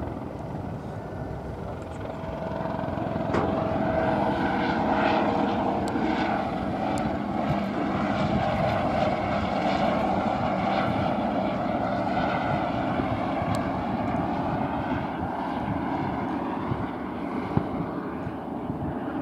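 Airbus EC120B Colibri helicopter in flight, its single turboshaft engine and rotors running steadily as it flies past; the sound eases a little near the end as it moves away.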